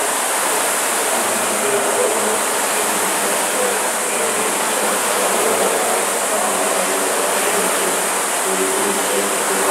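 Many Concept2 indoor rowing machines running at once, their fan flywheels whirring together in a steady, even whoosh.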